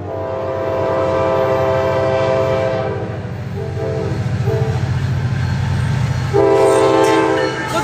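Nathan Airchime K5LA five-chime locomotive horn sounding as the CSX train approaches: a long blast, two short blasts about halfway through, and another long blast near the end. Under it runs the low rumble of the diesel locomotive and train.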